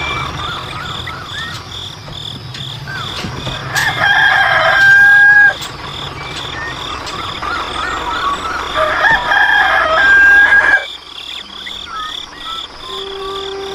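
A rooster crowing twice, about five seconds apart, each crow ending on a long held note, over a steady pulsing high-pitched background.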